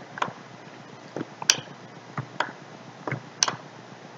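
Irregular clicks of a computer mouse, about seven short, sharp clicks spread unevenly across a few seconds.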